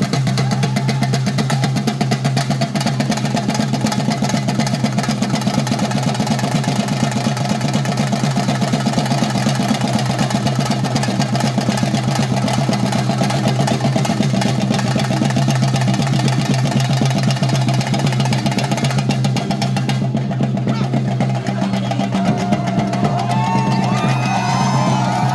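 Theyyam temple drumming: rapid, continuous chenda strokes, with a steady low hum underneath.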